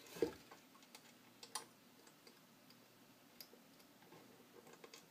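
A few soft clicks and light taps, spaced a second or two apart, as a ukulele string and fingertips knock against a 3D-printed plastic ukulele body while the string is threaded through the bridge hole.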